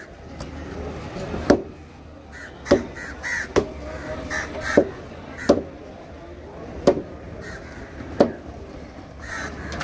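A knife chopping through raw fish onto a wooden cutting table, with about seven sharp knocks spaced roughly a second apart. Crows caw briefly in between the knocks.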